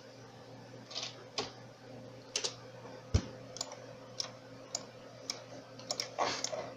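Scattered clicks of a computer mouse and keyboard, about one or two a second, over a faint steady hum. The sharpest click, a little past three seconds in, has a low thump to it.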